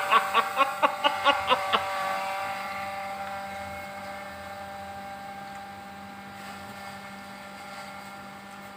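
A man laughing in quick, evenly repeated bursts for about the first two seconds. After that, a steady mechanical hum with several held tones that slowly fades.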